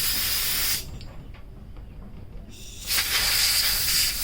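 Compressed-air blowgun blasting through small carburetor parts to clear their passages: a loud hiss that stops under a second in, then after a pause starts again near the three-second mark.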